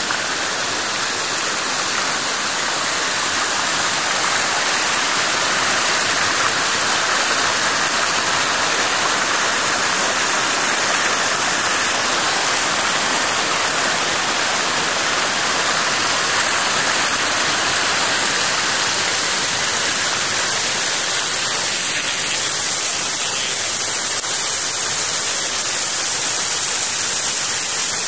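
Rocky mountain river running high after heavy rain, its white water rushing and churning over boulders in a loud, steady rush.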